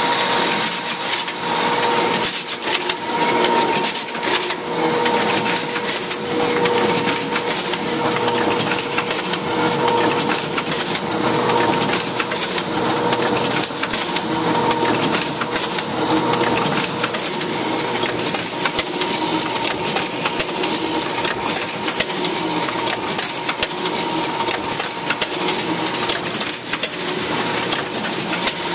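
A Duplo 1060 twin-tower collator and 4000 booklet maker running a test job. It makes a continuous mechanical clatter of rapid clicks over a steady hum and a high hiss.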